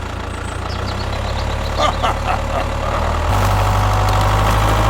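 Low engine rumble running steadily, stepping up louder about three seconds in, with a few brief clicks near the middle.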